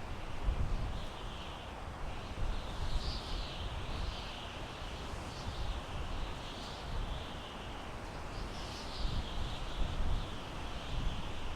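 Wind gusting through pine trees: a steady hiss over a low, uneven rumble. High-pitched animal calls rise and fall in repeated phrases throughout.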